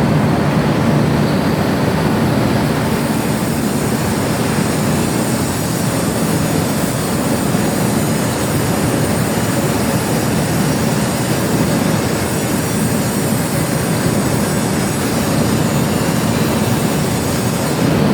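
Metal lathe running, turning an iron pipe, with a steady machining noise. A thin, high, steady whine from the cut comes in about three seconds in and holds.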